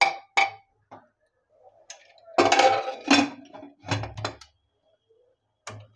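Aluminium pressure cooker being handled: a steel ladle knocking against the pot and its lid being set on and locked in place. The result is a series of separate metallic clanks and short clatters with pauses between them, the longest clatter about halfway through.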